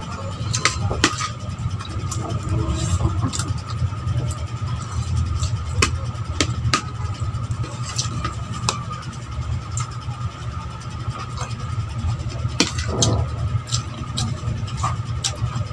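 Spoon and fork clicking and scraping against a plate while eating, with chewing, over a steady low hum that is the loudest sound.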